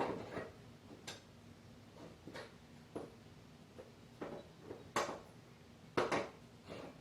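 Light, irregular metal clicks and clinks as a steel blade adapter is worked onto the keyed crankshaft of a Briggs & Stratton mower engine and turned to line up the key. The louder clinks come about five and six seconds in.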